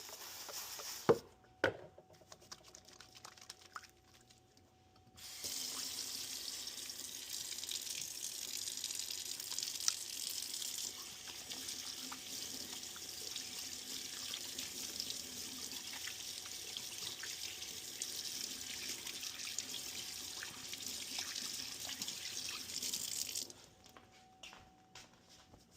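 Tap water running steadily into a sink for about eighteen seconds, then shut off abruptly. A couple of sharp knocks come just before it starts.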